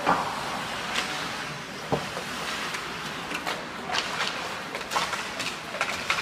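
Ice hockey play in a rink: several sharp clacks and knocks of sticks, puck and skates, scattered irregularly, the strongest at the very start and about two seconds in, over the steady hum of the rink.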